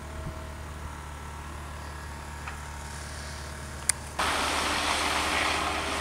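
Steady low hum of an idling vehicle engine, with one sharp click about four seconds in; just after it the sound steps up abruptly to a louder running hum with more hiss.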